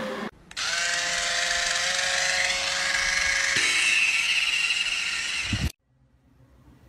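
Handheld electric foot file (callus remover) running: a steady high motor whine from its spinning roller. Its tone changes about three and a half seconds in, and it cuts off suddenly near the end.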